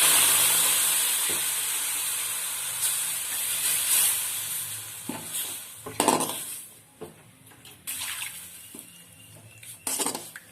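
Water poured into a hot, dry kadai of roasted herbs: a sudden loud hiss that fades away over several seconds. A few knocks follow later on.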